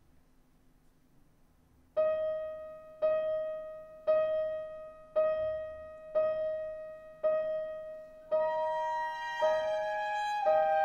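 Piano repeating one note about once a second, each strike ringing and fading before the next, after about two seconds of near silence. Near the end a violin joins with held notes above it.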